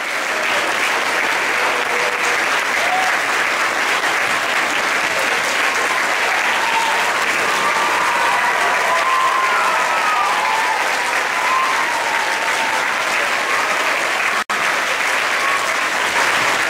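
Large crowd of schoolchildren and adults clapping steadily, with scattered voices and calls mixed in. Near the end the sound cuts out for an instant, then the applause carries on.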